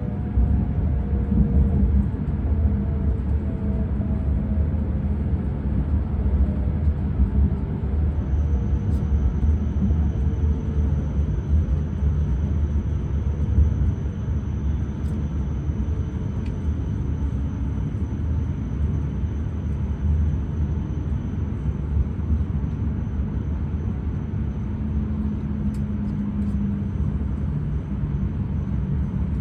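Inside an E6 series Shinkansen car while running: a steady low rumble of wheels on track, with a faint motor whine from its Toshiba IGBT-inverter traction drive slowly falling in pitch during the first half. A thin, steady high tone comes in about eight seconds in.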